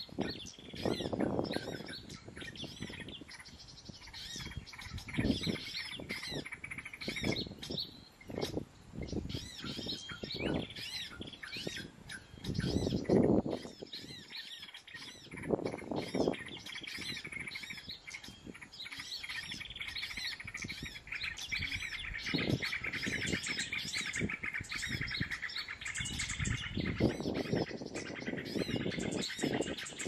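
Small songbirds chirping and calling all the way through, with several short bursts of wing flapping from a bird caught on a lime stick, the loudest about 13 seconds in and again near the end.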